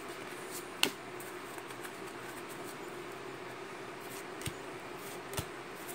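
Pokémon trading cards being flipped through by hand: light sliding and flicking of card stock, with a sharp snap about a second in and two softer clicks near the end, over a steady low hum.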